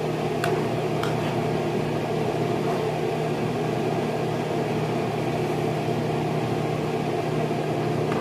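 A steady machine hum, like a kitchen fan, over a pan of stew being stirred with a metal ladle, with two light clinks of the ladle against the pan about half a second and a second in.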